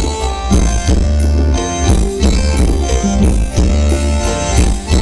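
Loud Thai luk thung dance music from a live band, with a fast, steady drum beat and heavy bass.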